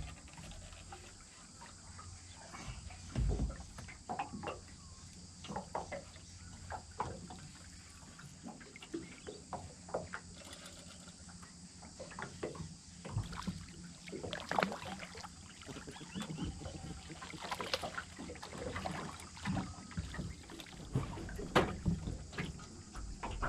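A small boat sitting on the water, with irregular light knocks and slaps of water against the hull over a steady high hiss.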